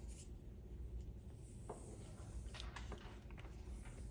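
Faint, scattered clicks and taps from a USB-C charging cable and its plastic charger being handled, over a low steady hum.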